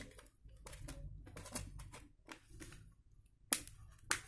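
Light clicks and taps of plastic as a smartphone is handled and turned over in the hand, with two sharper clicks near the end.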